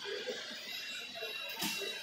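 Hall background at a model train show: music playing with faint distant chatter, and a brief rustle near the end.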